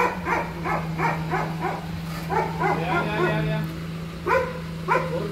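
Dogs barking in rapid, yelping runs of about four or five barks a second, with a longer drawn-out call near the middle, over a steady low hum.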